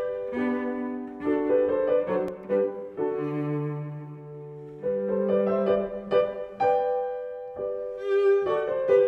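Instrumental background music, classical in style, with bowed strings and piano playing held notes and chords that change every second or so.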